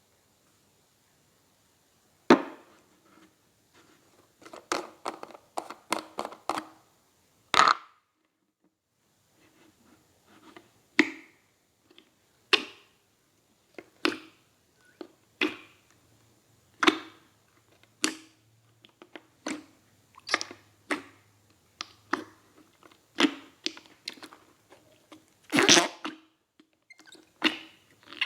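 Blue crystal slime being squeezed and pressed, making sharp pops and clicks about once a second, some in quick clusters.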